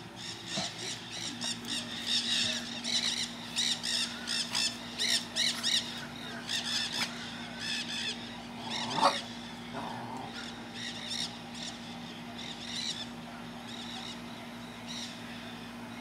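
A flock of green parrots squawking in rapid, harsh calls. The calls come thick for the first half and thin out toward the end. One louder, lower note sounds about nine seconds in, and a steady low hum runs underneath from about a second and a half in.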